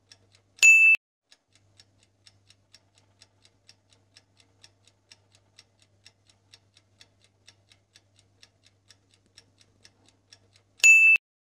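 Countdown-timer sound effect: clock-like ticking, about four ticks a second. A short, loud, high electronic beep sounds about a second in and again near the end.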